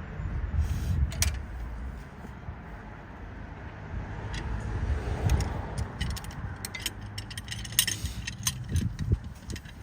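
Metal clinks and rattles of tools and loose parts as a car's brake assembly is worked on with the wheel off, sparse at first and coming in quick runs near the end, over a low rumble.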